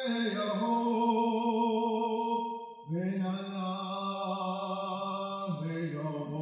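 A man singing a chant unaccompanied, in long held notes with a slight waver. The pitch steps down about three seconds in and again near the end.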